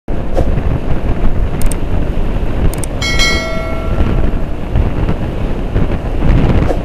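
Wind buffeting a helmet-mounted microphone over the road and engine rumble of a moving motorcycle. Two light clicks, then a ringing chime about three seconds in that fades over a second: a subscribe-button sound effect.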